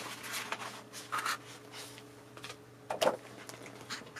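Paper rustling as a magazine's pages are handled and opened out: a few short rustles, the loudest about three seconds in.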